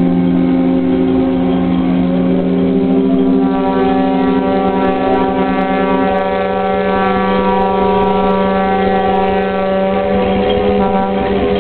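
Several steam whistles blowing long, overlapping held notes. One note sounds throughout, another stops about halfway, and a higher chord of whistle tones joins a few seconds in.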